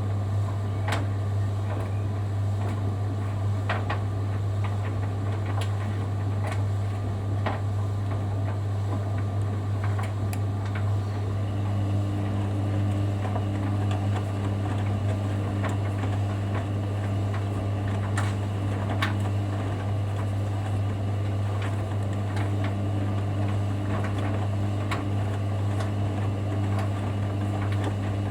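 Hoover Dynamic Next washing machine running its wash with a steady low hum and scattered light clicks and knocks from the load in the drum. About eleven seconds in, a steady motor whine joins as the drum motor turns the drum.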